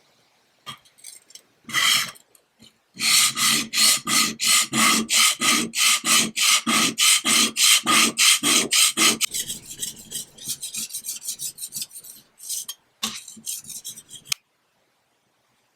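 Abrasive strokes worked back and forth on wood by hand: a quick, even run of about three strokes a second, then lighter, uneven strokes that stop suddenly.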